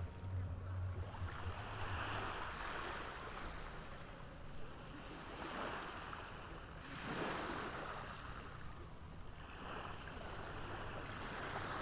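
Ocean waves washing in, with the surf swelling and falling back every few seconds. A low hum runs under it for the first two seconds.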